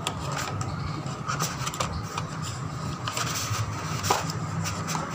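Hands handling a phone box's cardboard and moulded plastic tray while taking out the earphones: scattered light clicks and rubbing, over a steady low hum.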